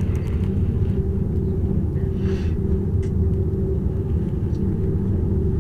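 Steady low rumble and hum of an aerial tramway cabin running up its haul cable, heard from inside the cabin, with a brief faint hiss about two and a half seconds in.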